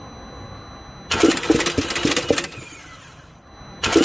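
Starter cranking a Volkswagen Golf GTI 2.0L engine twice: a burst of about a second and a half, then a second one starting near the end, without the engine firing. The engine is cranking but not starting, with a weird sound that the mechanic suspects comes from a very loose timing chain.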